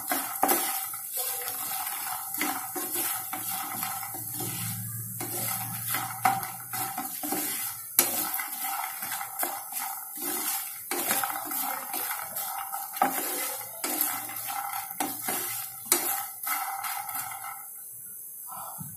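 A wooden spatula stirs and scrapes fox nuts (makhana) around a non-stick pan as they roast in a little oil. The light seeds roll and knock against the pan in an irregular run of scrapes and clicks, and the stirring stops near the end.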